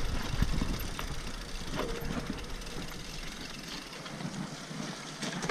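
Mountain bike rolling down a dirt trail: tyre noise, the rattle of the bike with occasional small clicks, and wind rumble on the microphone. The deep rumble fades out about three and a half seconds in.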